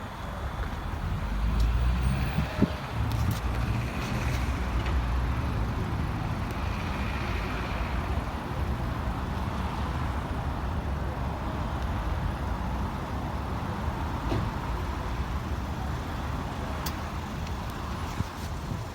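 Heavy vehicle engine running steadily, typical of fire apparatus at a station, with a single sharp click about two and a half seconds in.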